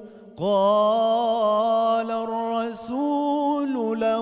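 A male munshid singing an Islamic religious song (inshad) in long, ornamented melismatic phrases. After a brief breath at the start, he holds a drawn-out wavering note, with a short break before a second phrase.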